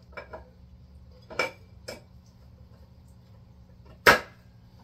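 Metal transmission parts clinking as a 4L60E's center support is fitted by hand into the aluminium case: a few light clinks, then one loud, sharp metallic clack about four seconds in.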